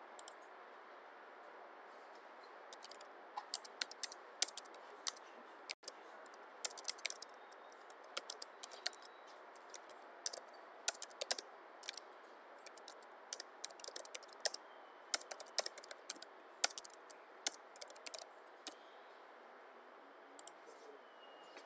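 Computer keyboard typing: irregular flurries of sharp key clicks with short pauses between them.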